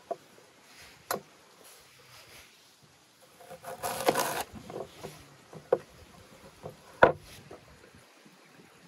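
A large kitchen knife cutting through a raw quince, with a dense cutting noise lasting about a second around four seconds in, and sharp knocks of the blade on the wooden cutting board, the loudest about seven seconds in.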